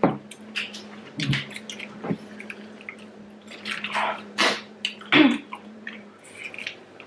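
Close wet mouth sounds of eating spicy prawns: chewing and smacking with short, sharp breaths through the mouth against the heat, in a string of brief separate bursts.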